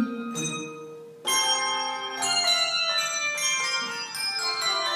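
Handbell choir playing a ragtime-style piece: many handbells rung together in chords, their notes ringing on. The ringing fades through the first second, then a loud chord comes in just after a second and more chords follow.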